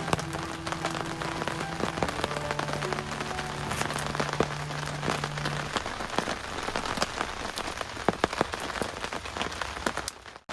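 Steady rain falling, with many individual drops ticking on a surface. Faint steady low tones sound in the first half and stop about halfway through.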